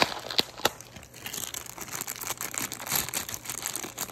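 Clear plastic bag crinkling as hands work a white plastic replacement blind mechanism out of its wrapping, with three sharp clicks in the first second.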